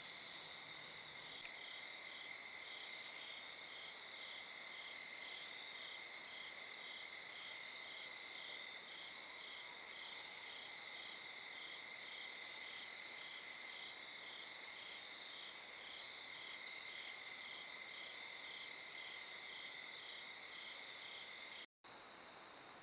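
Night insect chorus of crickets: a steady high trill with a second call pulsing about twice a second over it. It cuts off abruptly near the end, leaving a faint hiss.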